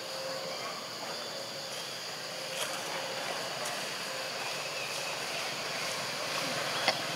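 Steady outdoor background noise with a few faint clicks and one sharp click near the end.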